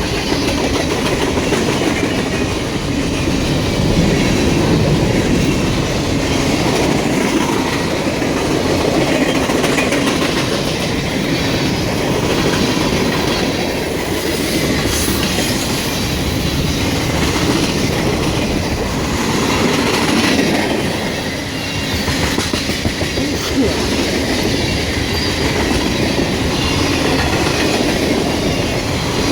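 Long freight train's cars rolling past at speed: a steady rumble with wheels clattering over the rail joints.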